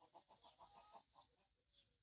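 Chicken clucking in a quick run of short notes that stops a little over a second in, with a few faint songbird chirps above it.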